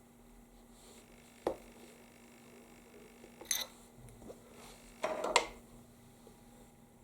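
A few sharp clicks and knocks: one about a second and a half in, a pair near the middle, and the loudest cluster near the end, over a faint steady hum.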